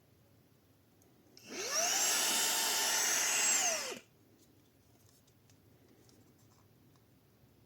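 Xiaomi Mi Vacuum Cleaner mini handheld vacuum switched on briefly. Its motor spins up with a rising high whine about a second and a half in, runs steady for about two seconds, then is switched off and winds down quickly.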